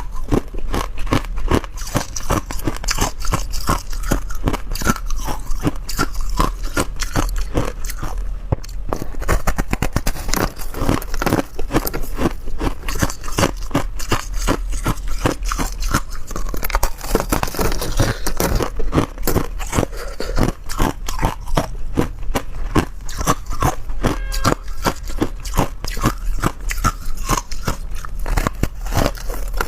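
Close-up chewing of ice: teeth crunching through hard and crushed ice in quick, continuous crunches.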